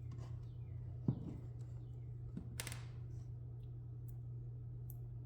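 Light handling sounds from a pencil marking a blast gate: a sharp click about a second in, a smaller tap, and one short scratchy stroke, over a steady low hum.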